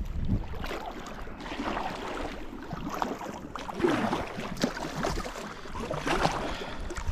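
Packraft being paddled: the paddle dipping and splashing in the water stroke after stroke, unevenly, with louder splashes around four and six seconds in.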